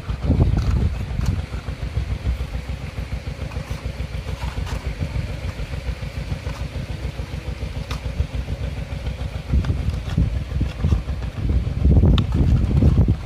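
A small engine running with a fast, steady low throb, growing louder for a stretch near the start and again about twelve seconds in.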